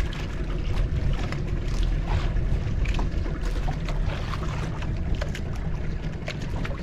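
Small fishing boat at sea: a steady low rumble from the boat with wind buffeting the microphone, and a scattering of short clicks.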